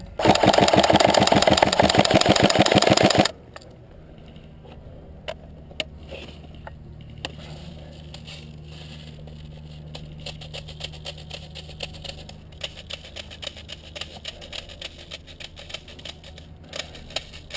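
Airsoft rifle firing a rapid full-auto burst about three seconds long, followed by faint scattered clicks.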